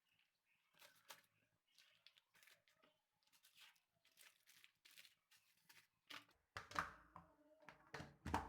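Faint crinkling and rustling of groceries being handled, with louder rustles and a couple of sharp knocks in the last two seconds.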